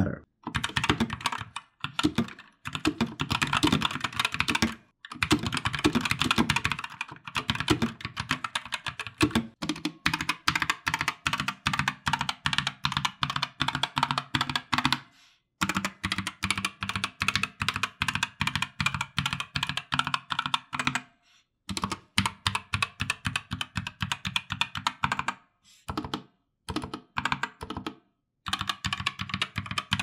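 Typing on a Geek GK61 60% mechanical keyboard with Gateron red optical switches and stock double-shot ABS keycaps: rapid runs of keystroke clacks broken by several short pauses.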